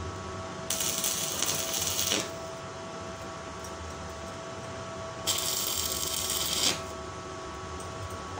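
Electric arc welding with a stick electrode on thin steel strip: two tack welds, each a crackling sizzle lasting about a second and a half, the first about a second in and the second past the middle. A steady hum runs underneath.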